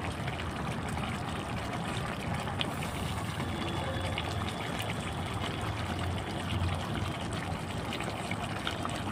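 Yogurt chicken curry simmering in an aluminium pot on a gas stove: a steady bubbling hiss with an occasional small pop.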